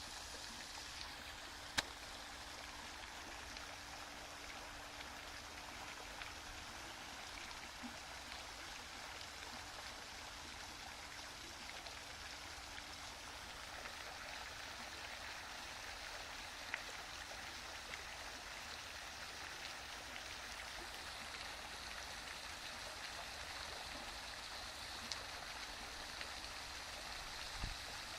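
Steady rush of running water, even and unbroken, with a few separate sharp clicks, the loudest about two seconds in.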